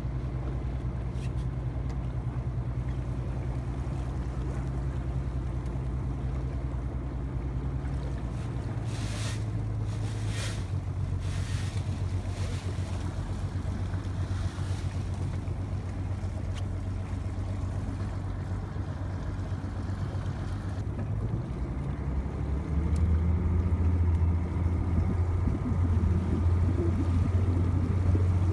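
A motorboat engine running steadily at low speed, with a low, even hum. Its note drops about a third of the way through, shifts again later, and then gets louder for the last few seconds, with water washing faintly underneath.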